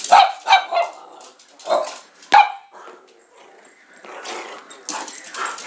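A small dog barking: three quick barks at the start, then two more spaced out over the next second and a half.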